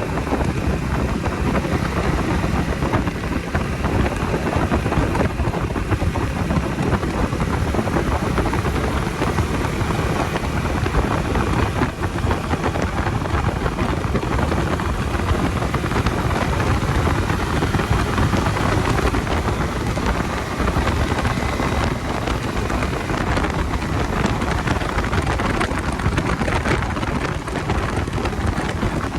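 Steady wind rush over the microphone of a moving Bajaj Dominar 250 motorcycle, with engine and road noise running evenly underneath.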